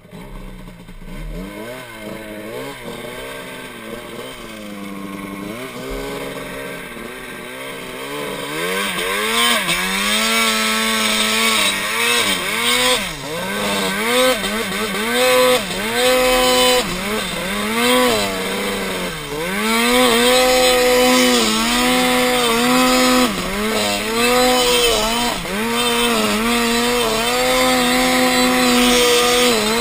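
Turbocharged mountain snowmobile, an M1200 with a Twisted Turbo kit, riding through deep powder: its engine rises and falls in pitch over and over with the throttle, getting louder about nine seconds in.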